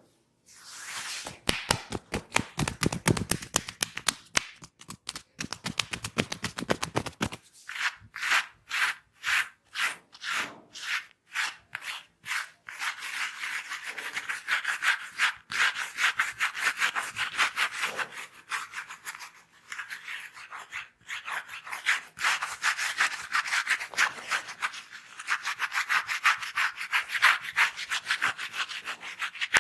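Rapid rubbing strokes of a head massage, hands or comb working over hair and scalp. Around eight seconds in the strokes slow to separate ones about twice a second, then quicken again into fast, continuous rubbing.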